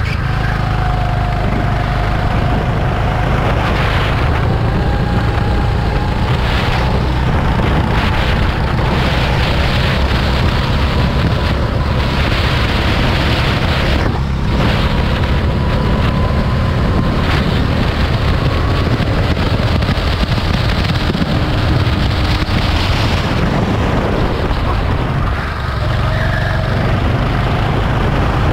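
A go-kart engine running at speed on track. Its note slowly rises and falls as the kart speeds up and slows through corners, under heavy wind noise on the microphone.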